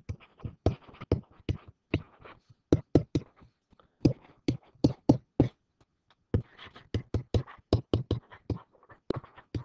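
Stylus tapping and knocking on a digital writing surface while words are handwritten, a quick irregular string of sharp clicks with a short lull a little past the middle.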